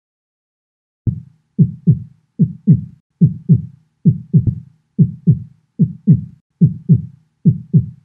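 Recorded heart sounds as heard through a stethoscope: a steady lub-dub, the first (S1) and second (S2) heart sounds, in pairs about 0.8 s apart, roughly 75 beats a minute. The beats start about a second in.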